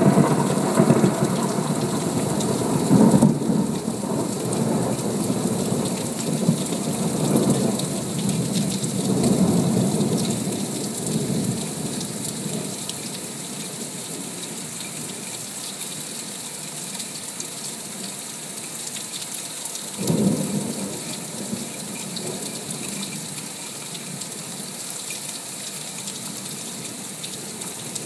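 Heavy rain pouring in a thunderstorm. Thunder rumbles loudly through the first ten seconds or so, then dies away under a steady hiss of rain, and a short peal of thunder comes about twenty seconds in.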